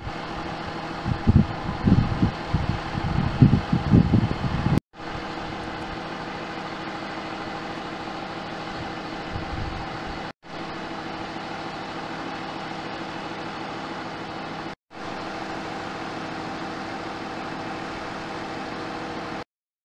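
Dodge Ram 2500's Cummins turbo-diesel engine idling steadily, with wind buffeting the microphone during the first few seconds. The sound breaks off for a moment three times.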